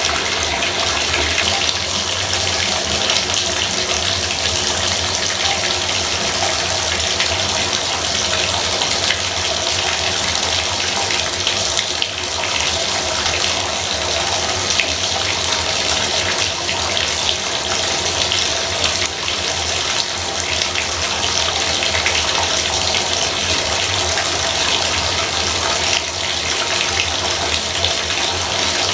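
Bathtub faucet running steadily, a loud, constant rush and splash of water pouring into the tub.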